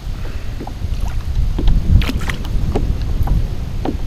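Wind buffeting the microphone on an open kayak, a steady low rumble that swells a little before the middle, with a few light knocks and small splashes scattered through it.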